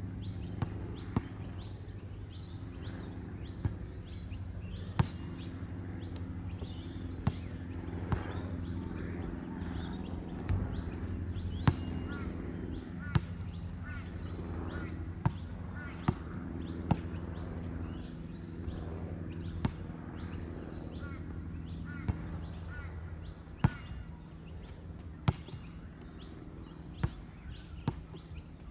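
A basketball bouncing on a concrete outdoor court, single sharp bounces every second or two, with birds chirping and a steady low hum underneath.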